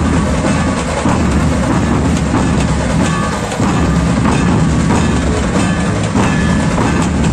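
A dhol troupe playing together: many large barrel drums beaten hard in a loud, dense, driving rhythm.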